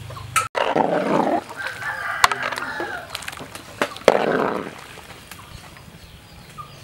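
Chickens calling, with a rooster crowing; two louder harsh calls come about half a second in and about four seconds in.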